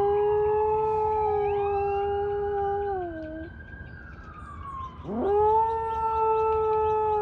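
A dog howling: two long, steady howls. The first holds and then drops in pitch as it ends about three seconds in. The second swoops up about five seconds in and holds. Fainter, higher gliding tones sound behind them.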